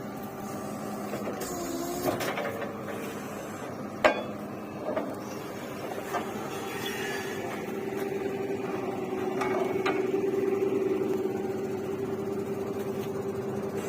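Borewell drilling rig's machinery running with a steady hum that swells for a few seconds past the middle, with a sharp knock about four seconds in and a softer one just after.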